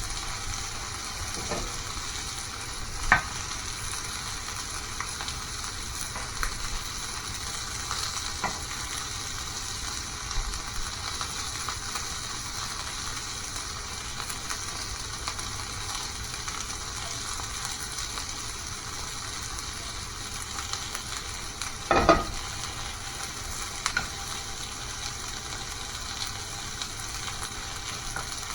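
Food frying in a hot pan: a steady sizzle, broken by a few short knocks, the loudest about three seconds in and another near 22 seconds.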